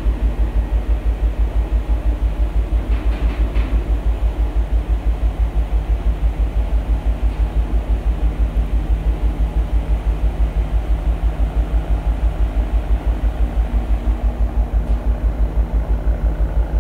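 Deep, even throb of a container ship's machinery under way, about seven pulses a second, with a steady hum over it.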